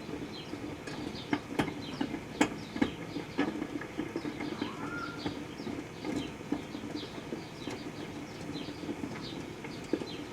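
Proctor-Silex microwave oven running with a steady hum while sugarcane heats inside, with scattered sharp crackles and pops. Short high chirps repeat a few times a second throughout, and a brief whistle-like tone sounds about five seconds in.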